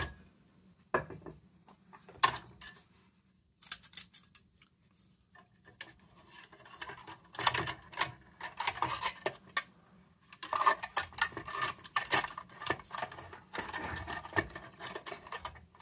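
Small metal lantern parts being handled and fitted by hand, clinking and scraping against each other: scattered clicks at first, then denser clinking and rubbing from about six seconds in.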